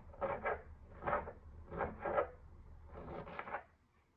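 Raw cabbage being cut and handled on a cutting board: about five short, crisp crunching scrapes at uneven intervals, dying away near the end.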